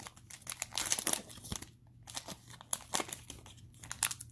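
Foil wrapper of a Panini Mosaic football card pack crinkling and tearing in irregular bunches as gloved hands rip it open.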